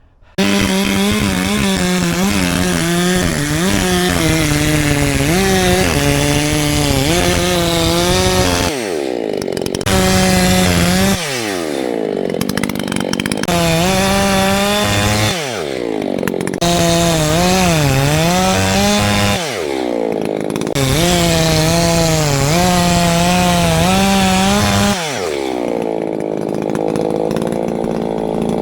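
Chainsaw bucking a felled dead tree trunk into rounds, running at full speed and bogging slightly in the cut. It is let off about five times, the pitch falling away briefly each time before it speeds up again.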